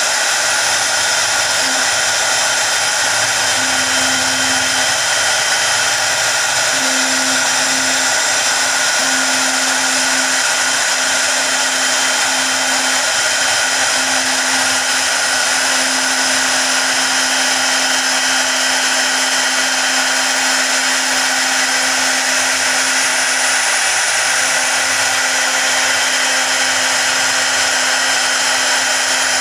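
CNC router spindle running steadily with a high-pitched whine, its V-shaped engraving bit cutting into a wooden board.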